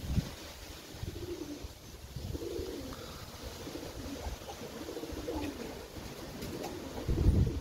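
Turkish tumbler pigeons cooing repeatedly. Gusts of wind rumble on the microphone throughout and are loudest near the end.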